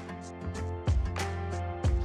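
Background music with a steady beat: held notes over regular percussive hits about once a second.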